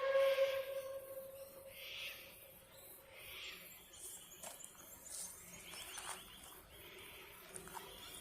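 Puffing Billy narrow-gauge steam locomotive's whistle: one long steady tone that fades out over about three seconds. Faint bird chirps and a few light clicks follow.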